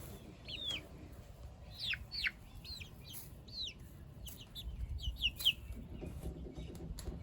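Young chickens, about eight weeks old, giving a string of short, high peeps that slide down in pitch, with a low rumble joining in about halfway through.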